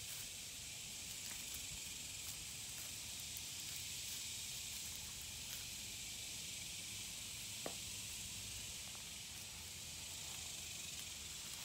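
Steady, even high hiss of an insect chorus, with one faint click about eight seconds in.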